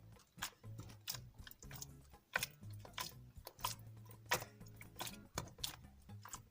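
Slime being pressed and folded by hand, giving irregular sticky clicks and pops, about one or two strong ones a second, over a soft low background hum of music.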